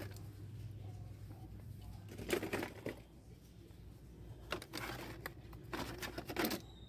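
Carded Hot Wheels cars in plastic blister packs rustling and clacking against each other as a hand digs through a bin of them. The handling comes in short bursts, about two seconds in and again from about four and a half seconds, over a faint steady low hum.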